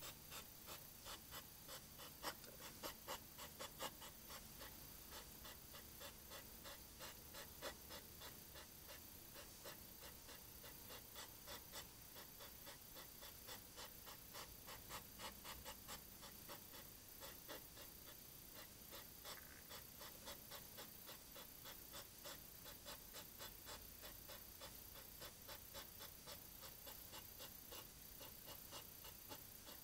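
Hedgehog huffing: faint, quick rhythmic snorting puffs, about three a second, going on steadily and slightly louder near the start. This is the snorting typical of a hedgehog pair in courtship.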